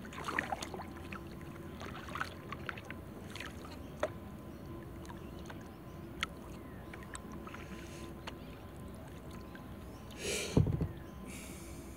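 Kayak paddling: water splashing and dripping off the paddle blades with small scattered clicks, and one louder splash about ten seconds in.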